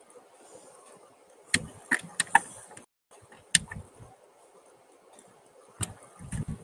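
A handful of sharp, separate clicks, four in quick succession, then one more and another a couple of seconds apart, followed near the end by a few low thuds.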